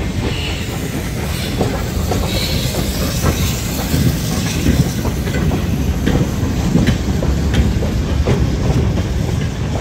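BR Standard Class 2MT steam locomotive No. 78018 hauling a goods train past, its wagons rumbling along the track with wheel clicks over the rail joints.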